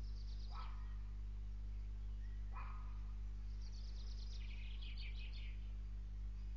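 Steady low electrical hum with faint bird calls over it: two short downward-sliding calls in the first three seconds, then a quick run of chattering chirps around the middle.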